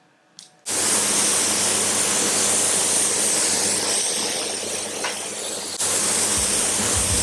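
Compressed-air gravity-feed spray gun spraying the final coat of clear varnish: a steady loud hiss that starts abruptly about a second in and runs on unbroken.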